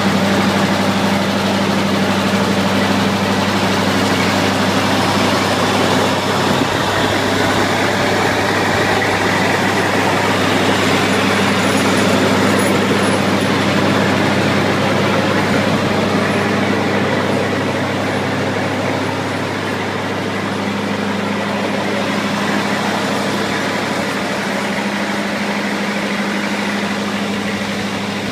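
Lincoln SA-200 Pipeliner engine-driven arc welder running steadily, its engine and generator holding a constant speed with a deep, even hum.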